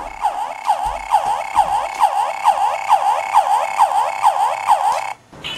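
Battery toy blaster's electronic firing sound: a steady siren-like warble, pulsing about three times a second, that cuts off suddenly near the end.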